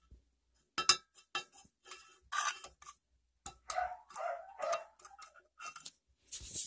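Metal scissors clicking and tapping against a tin jar lid: an irregular run of short, sharp clicks.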